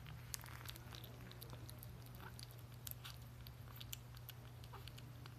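Kitten eating wet cat food from a steel bowl: faint, irregular chewing and lapping clicks, over a steady low hum.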